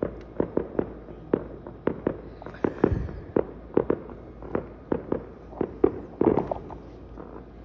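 Fireworks going off: an irregular string of sharp bangs and pops, two or three a second, with a denser, louder cluster near the end.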